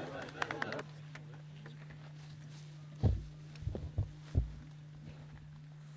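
Four dull, low thumps close together in the second half, over a steady low hum, with a brief murmur of voices at the start.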